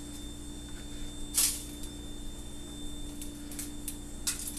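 A few short, soft rustles as salt is sprinkled over a raw flounder fillet lying on aluminium foil, the loudest about a second and a half in. Under them runs a steady faint hum.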